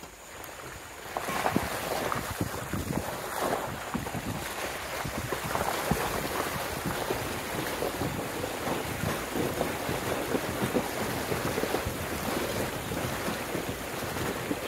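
Car tyres rolling through deep muddy puddles on a potholed dirt road, water sloshing and splashing irregularly, with wind buffeting the microphone. The splashing starts about a second in.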